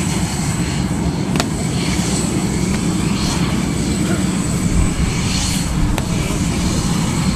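Steady rumble of aircraft engine noise, with faint voices under it and two sharp clicks, about a second and a half in and about six seconds in.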